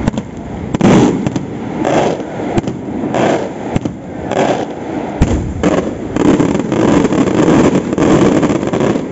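Aerial firework shells bursting overhead: several sharp bangs, the loudest about five seconds in, between swelling stretches of dense rumbling noise.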